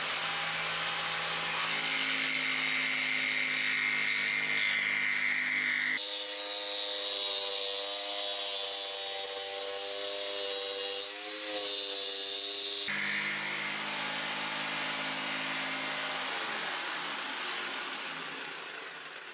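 Bosch corded electric jigsaw running and cutting through a wooden board along a curve, a steady motor tone with the rasp of the reciprocating blade. The tone changes abruptly about six seconds in and changes back some seven seconds later, and near the end the saw winds down.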